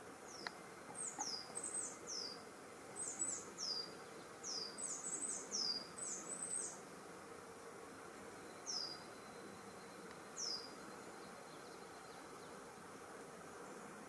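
A small bird calling: a quick run of short, high-pitched notes that each slide downward, given in twos and threes for about seven seconds, then two single notes after a pause, over a faint steady outdoor hiss.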